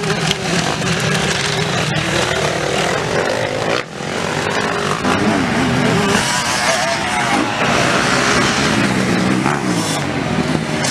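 Motocross dirt bike engines revving up and down as the bikes ride the track, the pitch sweeping with each throttle change, with a couple of abrupt breaks where the sound cuts between shots.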